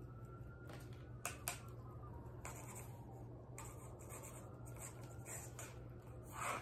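Cats playing: scattered short scratches and scuffs, about a dozen, from claws and paws on a surface or toy. The loudest is a longer scrape near the end.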